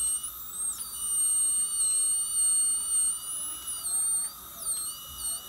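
Diode dental laser's steady high beep sounding while the laser fires: on for about three seconds, off for about a second, then on again near the end. A wavering higher whine runs behind it throughout.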